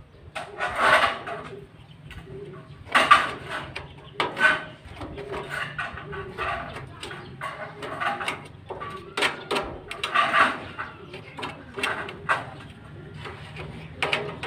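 Irregular knocks, taps and clatter of hands-on building work, with a few louder bursts over a steady low hum.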